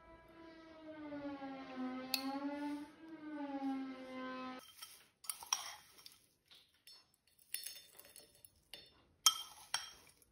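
A sustained pitched tone that dips and rises slightly in pitch, then cuts off abruptly about four and a half seconds in. After it, a metal spoon clinks and taps against a ceramic bowl and a stemmed dessert glass while oaty crumble is spooned out, with one sharp clink near the end.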